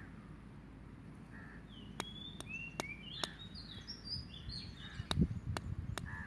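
Birds chirping in short, high notes and quick downslurs, over outdoor background noise. A series of sharp clicks starts about two seconds in, and a brief low rumble comes a little after five seconds.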